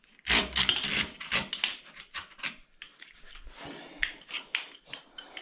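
Handling noise from working a mountain bike's handlebar controls and cables: a loud stretch of rubbing and scraping about half a second in, then scattered clicks and rubs of levers, cable housing and bar.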